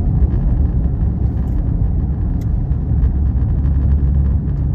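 Car road noise heard from inside the cabin while driving: a steady low rumble of tyres and engine.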